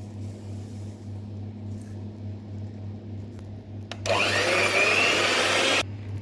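Electric kitchen blender run in one short burst of under two seconds, its motor whine rising as it spins up, then cutting off suddenly, over a steady low hum.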